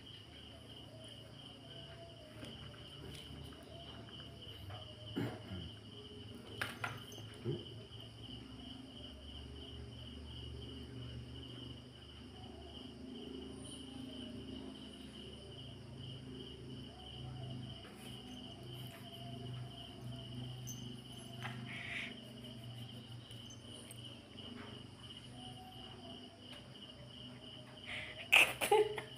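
Cricket chirring steadily in the background, an evenly pulsed high trill, over a low hum. A few soft knocks come a few seconds in, and a louder burst of noise comes near the end.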